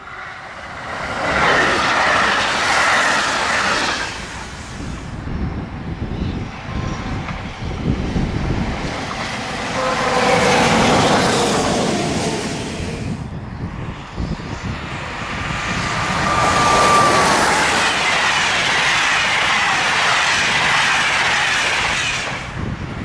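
Electric trains passing at speed on an electrified main line: a rush of wheel and air noise that swells and fades three times, broken off suddenly between passes. A brief steady high tone sounds about two-thirds of the way through.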